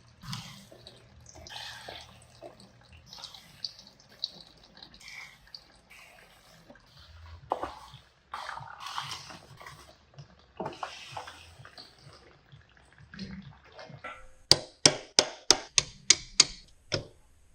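Hand tools working on a transfer case: scattered metal handling clatter and small clicks, then a quick run of about ten sharp taps near the end.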